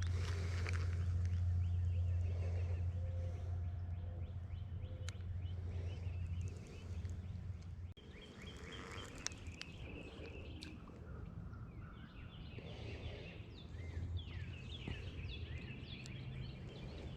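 Small birds chirping and calling repeatedly around a pond, over a steady low rumble that is heaviest in the first half. A few sharp clicks come in between.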